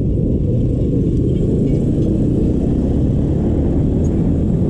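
Small motorcycle under way, with a steady low rumble of engine and wind.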